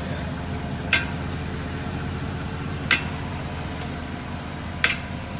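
Porsche Cayenne brake system giving a sharp, ringing click three times, about two seconds apart, each time the brake pedal is pressed while the car is standing still, over a steady low hum. The click seems to come from the brake hoses as pressure builds, which the owners put down to the fluid pressure not having time to settle.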